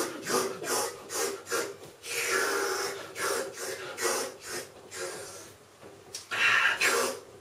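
A rakugo performer's mouth imitating someone slurping soba noodles: a run of quick wet slurps, with two longer drawn-in slurps about two seconds in and near the end.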